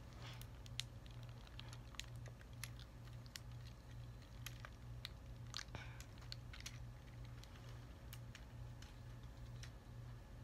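Faint, irregular plastic clicks and snaps from a Transformers Studio Series 29 Sideswipe action figure's joints and panels being moved by hand while it is transformed, over a steady low hum.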